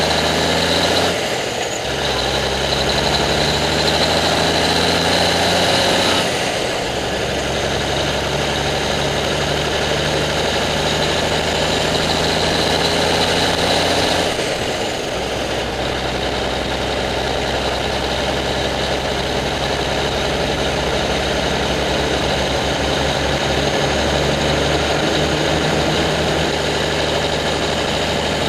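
Heavy truck's diesel engine running as the truck drives along, heard close to a front wheel with tyre and road noise. The engine note breaks off and picks up again about a second in, about six seconds in and about fifteen seconds in.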